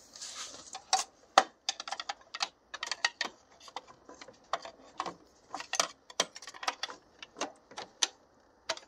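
Engine wiring harness assembly being shifted around in the engine bay: many light, irregular clicks and rattles.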